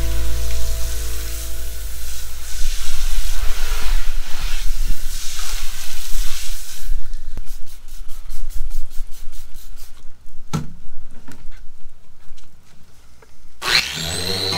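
Water spraying from a garden hose nozzle onto the fiberglass, then a quick run of spray-bottle squirts. Near the end a random orbital sander starts up with a rising whine that settles into a steady high whine.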